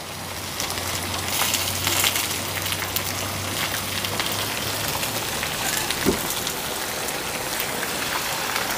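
Potatoes and onions sizzling in a large frying pan: a steady crackling hiss dotted with small pops, with one short knock about six seconds in.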